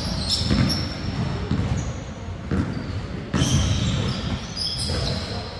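Basketball game play on an indoor court: the ball bouncing with dull thuds, players' footsteps, and a few short high squeaks of shoes on the floor.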